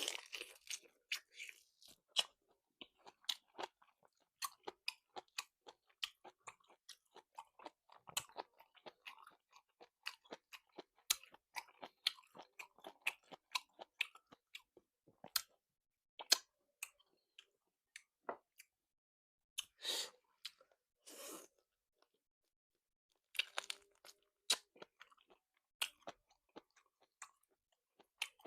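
Close-miked chewing and biting of salt-cured chicken, a steady run of sharp, crisp crunching clicks and wet mouth sounds, with a couple of short noisier bursts about two-thirds of the way in.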